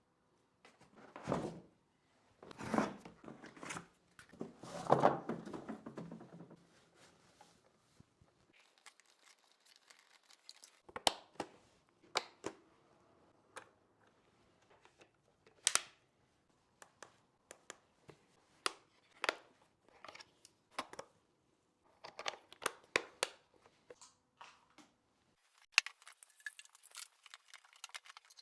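Irregular handling sounds: a few rustling, tearing bursts in the first several seconds, then scattered sharp clicks and knocks.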